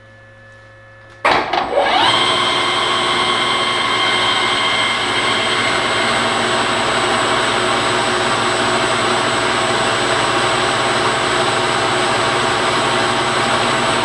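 Small benchtop metal lathe switched on about a second in, its motor whining up to speed within about half a second, then running steadily at speed as it spins a brass rod against a drill bit held in the tailstock chuck.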